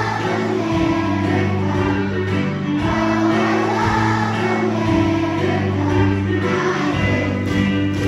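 A large group of elementary school children singing together as a choir over an instrumental accompaniment that holds steady low notes.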